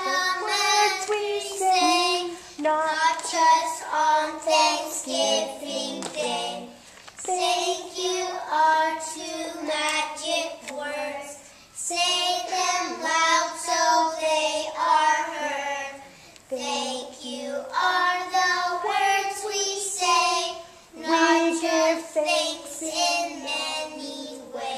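Young children singing a song together, in sung phrases with short breaks between lines.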